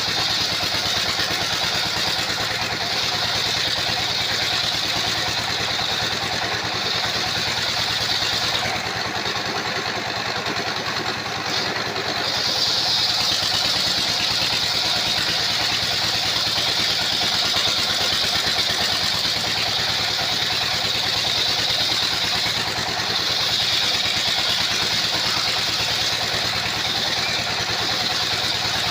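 Sawmill circular saw with a carbide-tipped blade running and cutting timber, its drive running steadily under a high cutting whine. The whine eases off for a few seconds about nine seconds in, then comes back.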